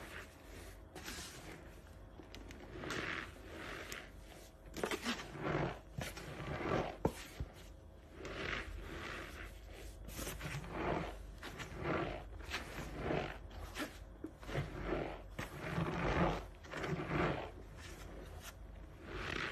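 Cornstarch powder squeezed and crumbled in a bare hand: repeated soft crunching as the packed starch is gripped and broken up, in irregular bursts about a second apart.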